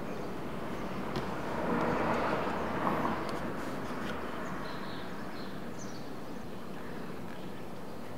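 Steady background noise with a passing vehicle outside, swelling about a second and a half in and fading out after about three seconds.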